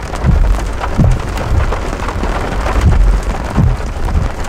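Heavy rain pattering on a car's windshield and roof during a thunderstorm, over a loud low rumble that surges irregularly every half second or so.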